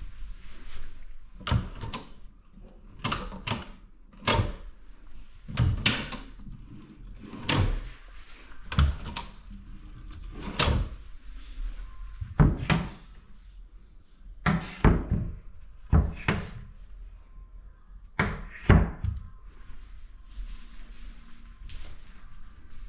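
Doors being shut and knocked: a run of about twenty irregular thuds and knocks, many coming in quick pairs, which stops a few seconds before the end.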